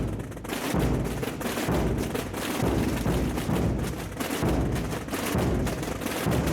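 Tamborada: a mass of drums and bass drums (tambores and bombos) beating together in a dense, continuous rattle with a heavy bass pulse, swelling and easing slightly every second or two.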